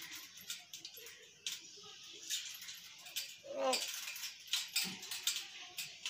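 Caged common hill mynas making a run of short clicks and raspy rattles, with one louder call about three and a half seconds in that falls steeply in pitch.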